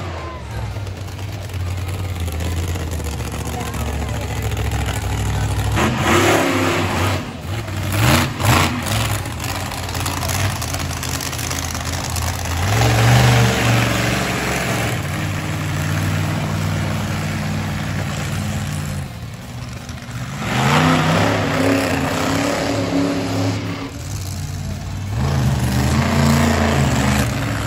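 Monster truck engine running and revving up in repeated bursts between steadier stretches, with a few sharp knocks about eight seconds in.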